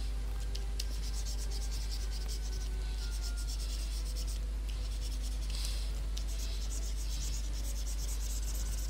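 Stylus scratching across a graphics tablet in a run of short strokes, with a few light ticks, over a steady low hum.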